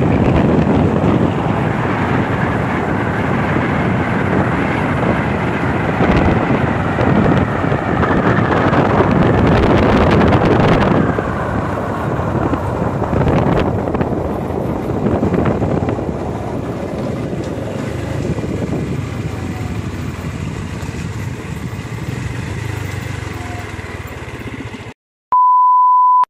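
Wind rushing over the microphone with a vehicle running underneath, slowly easing off. Near the end the sound cuts out and a steady test-tone beep plays for about a second, the TV colour-bars tone.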